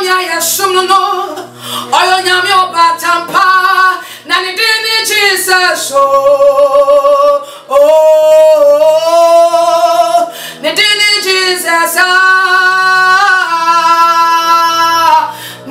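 A woman singing a worship song in a strong voice with heavy vibrato, holding two long notes in the middle.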